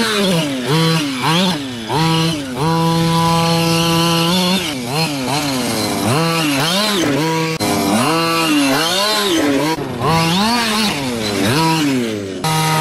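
The 26cc two-stroke gasoline engine of a Losi 5ive-T RC truck, revving up and down over and over as the throttle is worked while it drives and jumps. About two and a half seconds in it holds one steady pitch for about two seconds.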